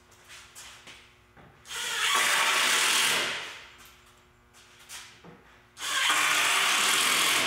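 Cordless impact driver driving 1.5-inch wood screws through the plywood bottom shelf into the 2x4 frame: two runs of about a second and a half each, with a few small knocks between.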